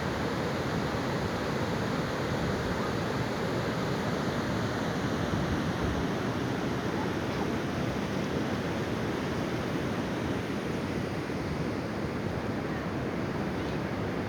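Steady rushing of water over a river waterfall and rapids.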